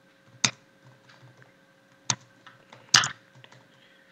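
Typing on a computer keyboard: scattered keystrokes, three of them loud, about half a second, two seconds and three seconds in, with fainter taps between.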